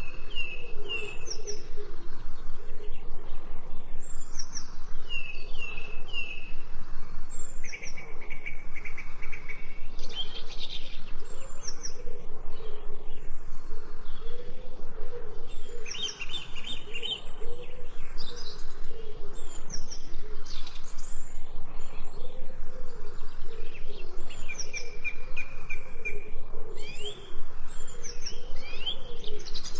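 Many songbirds chirping, whistling and trilling in quick succession over a steady background rush, likely flowing water.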